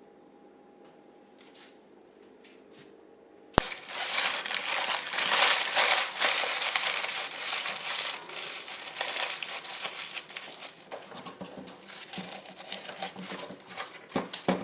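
Material being crumpled and crinkled by hand, starting with a sharp click about three and a half seconds in and running on for about ten seconds, loudest near the start and tapering off.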